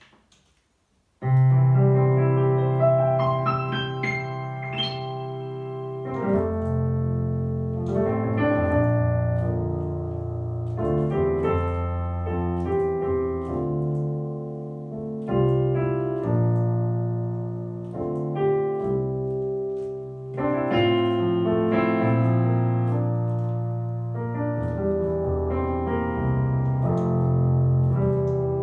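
Yamaha P-515 digital piano played on a piano voice: after a second of silence it comes in suddenly with a flowing passage of sustained chords, deep bass notes under a melody.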